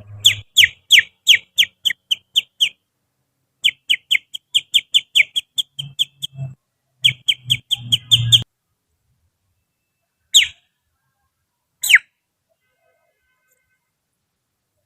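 Finger whistling in imitation of a kutilang sutra's song: quick runs of sharp, downward-sliding whistled notes, about four a second, in three bursts, then two single notes. After that it stops.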